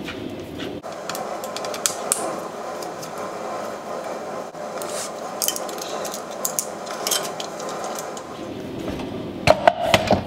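Red plastic handle being worked off a Bauer portable band saw by hand: scattered clicks, knocks and rattles of plastic and metal parts, with a few louder knocks near the end.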